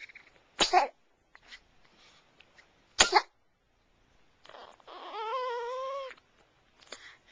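Two sharp hiccups a little over two seconds apart, then a high, wavering whine lasting a little over a second.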